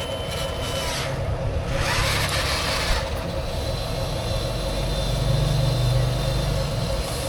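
Small electric motors of radio-controlled toy construction vehicles running with a steady whine and hum, with a rush of scraping noise about two seconds in.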